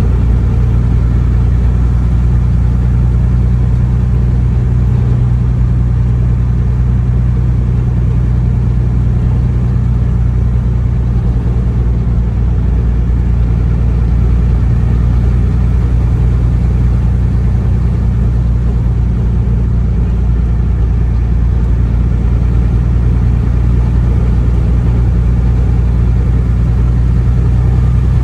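Steady low drone of a vehicle cruising at constant speed, heard from inside the cab: engine hum and road noise, unchanging throughout.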